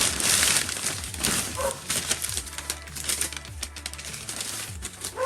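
Plastic bag crinkling and rustling with scattered clicks and taps as a basketball is worked out of it.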